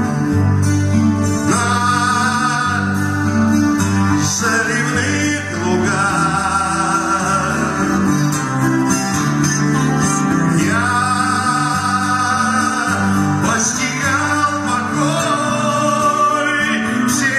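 A song: a man sings long, held notes that waver in pitch over a steady instrumental accompaniment.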